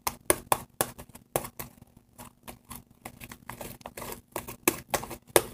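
Homemade fluffy slime of glue, shaving cream and contact solution being kneaded and stretched by hand, giving irregular sticky clicks and pops, several a second. It is being worked by hand toward a good, not-too-sticky consistency.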